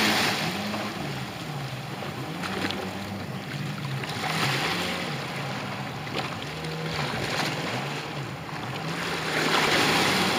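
Jet ski engine running at speed, its pitch rising and falling over and over as the craft hops across the water, under a rushing hiss of spray and wind that grows louder near the end.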